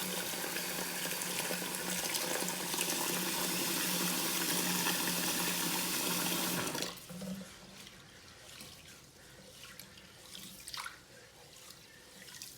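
Kitchen tap running steadily into a pot of rice for washing, with a low hum, shutting off about seven seconds in. After that, softer irregular swishing and light clicks of the rice being stirred in the water by hand.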